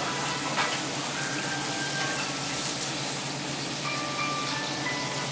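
Food sizzling steadily on a teppanyaki iron griddle, with light background music of chime-like tones and a brief tap about half a second in.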